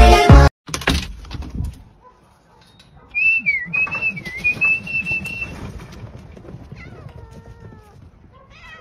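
A high whistled note, held for about two seconds with two short dips in pitch. Then several cats meow in falling cries near the end.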